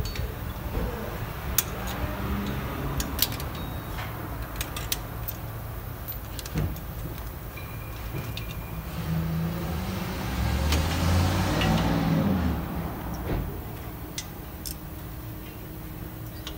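Sharp metallic clicks and clinks of pliers on the rear drum-brake shoes and their spring hardware as the shoes are worked off the backing plate. Under them runs a steady low engine rumble that swells to its loudest about eleven seconds in, as of a vehicle passing, then fades.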